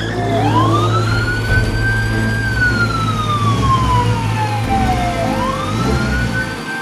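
Wailing siren sound effect for a toy police car: one slow tone rises for about two seconds, falls for about three, and starts rising again near the end, over a steady low hum.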